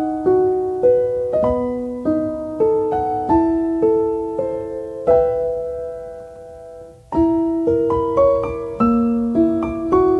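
Soft piano background music: a gentle melody of single notes and chords. About five seconds in, one chord is left to fade for about two seconds before the playing resumes.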